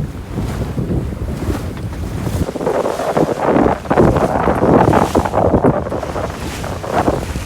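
Strong wind buffeting the microphone on a sailboat, with waves rushing and splashing; the rushing grows louder about two and a half seconds in.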